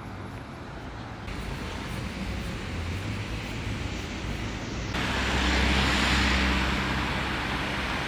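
Street traffic: cars driving past on the road with a low engine hum, getting louder about five seconds in.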